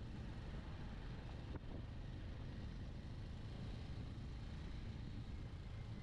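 Steady riding noise from a Bajaj Avenger 160 Street motorcycle on the move: a low rumble of wind on the microphone mixed with engine and road noise, unbroken throughout.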